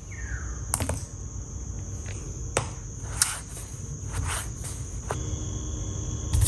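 A chef's knife cutting through a soft yam paste cake and striking a plastic cutting board, about six sharp taps spread out, under a steady high-pitched whine and a low hum. A second, lower steady tone joins about five seconds in.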